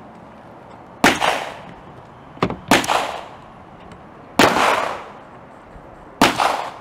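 Gunshots from other firearms being fired on the range: four loud shots and one fainter one at irregular intervals, each a sharp crack with an echoing tail.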